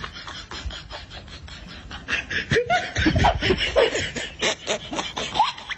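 Snickering laughter, short and broken, over a run of quick clicks and knocks that grows busier about two seconds in.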